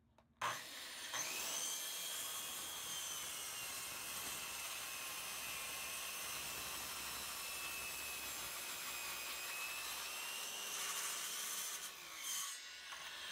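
DeWalt corded circular saw spinning up about a second in and crosscutting a wooden board, its motor giving a steady high whine through the cut. The whine fades near the end as the trigger is let go.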